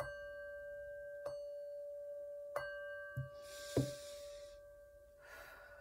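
Small brass singing bowl struck three times with a wooden mallet, about a second and a quarter apart, ringing on in a steady tone that slowly fades. Two soft knocks come a little after three seconds in.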